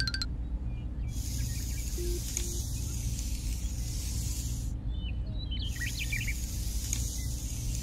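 Birds chirping in short tweets, over a steady low hum and a high hiss that comes and goes in even stretches. A ringing chime tone cuts off just after the start.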